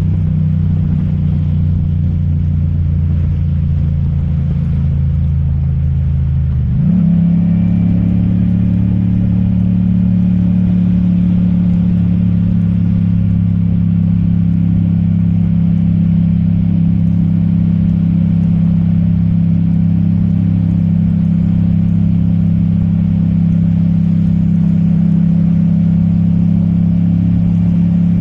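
Yamaha MT-07's 689 cc parallel-twin engine running at steady cruise. Its note steps up sharply about seven seconds in, then holds steady over a constant hiss of wind and wet road.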